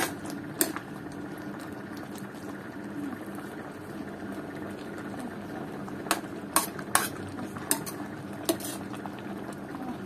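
Metal ladle scraping and clinking against an aluminium wok while stirring a simmering pork-and-greens stew, over steady bubbling of the broth. The loudest clinks come once near the start and then in a cluster from about six to nine seconds in.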